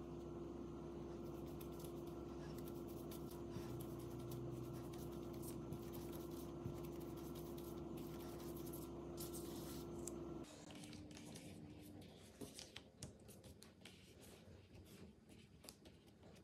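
Soft rubbing and scratching of hands rolling brioche dough into a rope on a marble countertop, over a steady low hum that drops away about two-thirds of the way in. After that come light scattered ticks and rustles as the dough strands are handled.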